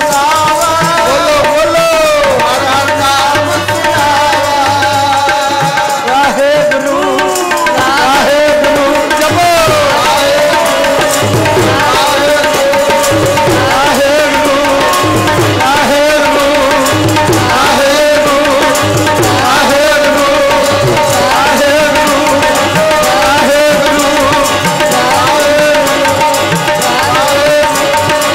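Tabla playing kirtan accompaniment over held harmonium chords, with deep bass-drum (bayan) strokes recurring every second or two.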